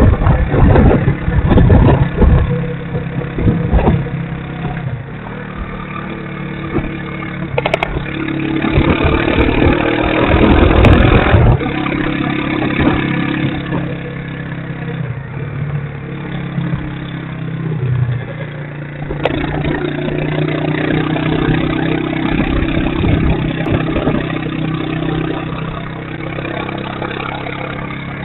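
Motorcycle engine running while riding along a street, its pitch shifting as it speeds up and eases off. Wind rushes over the microphone, gusting in the first few seconds and loudest about eight to eleven seconds in.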